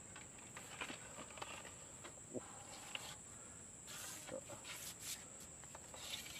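A steady high-pitched insect drone, with faint scattered clicks and rustles as a long telescopic fishing pole is pulled out section by section.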